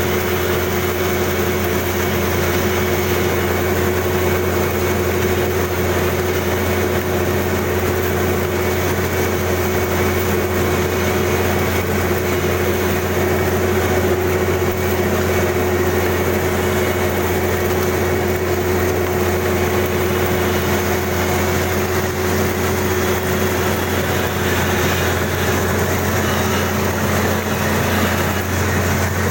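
Kubota DC-35 combine harvester running steadily, its engine and machinery giving an even, unchanging hum with a low drone and a steady higher tone.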